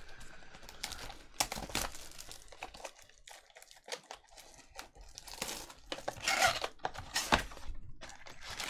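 Plastic shrink-wrap being torn and crinkled off a sealed trading-card box, with cardboard rustling and snapping as the box is opened. The crinkling is loudest about six seconds in, and a sharp snap comes a little after.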